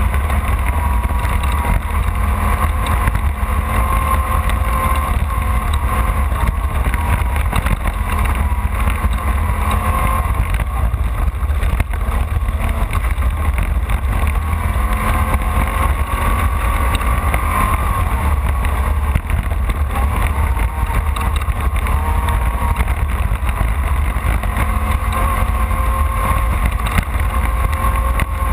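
Off-road race car's engine running steadily under load, its pitch drifting slowly up and down, over a heavy low rumble.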